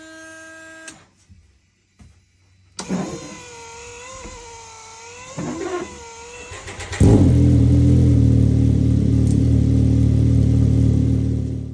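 Can-Am X3's turbocharged three-cylinder engine: a short beep, then about three seconds in the engine starts and runs unevenly with a wavering note. About seven seconds in a much louder, steady engine note through the Treal sport exhaust takes over and cuts off abruptly at the end.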